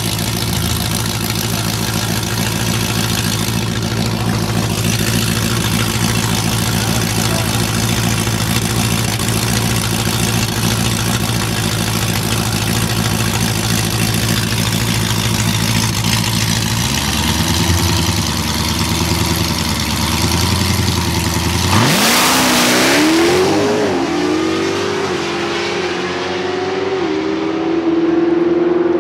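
Dodge Charger's engine idling at the start line with a steady low note that changes about two-thirds of the way through. Then it launches loudly and the engine note climbs in steps as it accelerates away through the gears.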